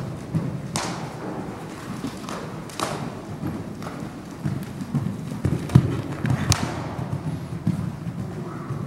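A New Forest pony cantering on the sand footing of a riding arena: dull hoofbeats with a few sharper thuds scattered through.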